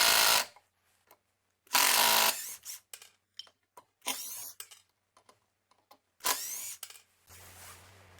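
Restored Impact National EZT611 electric screwdriver's motor run in short bursts as a final test. A run cuts off about half a second in, another comes near two seconds, and two shorter bursts follow that spin up with a rising whine. Light clicks fall between the bursts.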